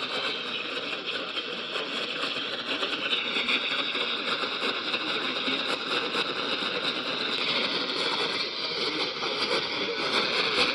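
Static from a radio tuned to a weak, barely received station: a steady hiss with fine crackle, the signal buried in the noise by poor reception.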